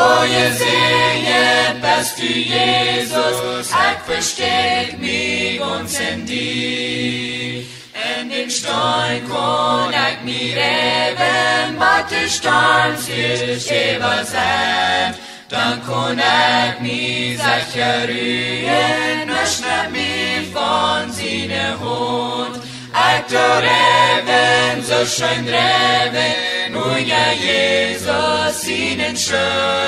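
A group of voices singing a hymn in harmony, in sung phrases with brief pauses between them.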